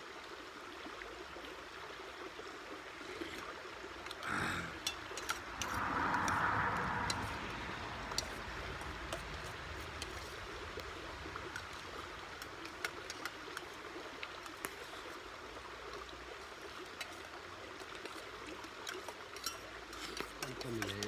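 Spoons clicking against metal camp bowls as people eat, over a steady rushing background. About four and six seconds in there are two louder, noisier bursts.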